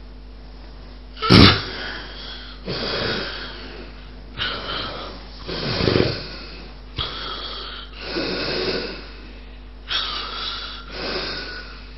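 A sleeping person with obstructive sleep apnea snorts loudly about a second in, breaking a breathing pause, then goes on with about six snoring breaths. This is the loud snort with which breathing restarts after an apnea.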